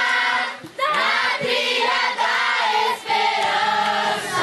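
A group of children and teenagers singing a religious song together in Portuguese, with a brief pause just under a second in.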